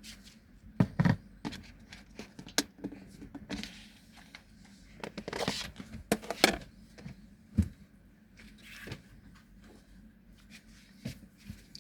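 Kitchen things being handled: scattered knocks and clicks, the sharpest about a second in and again about six and a half seconds in, with a short rustle just before the second, over a faint steady hum.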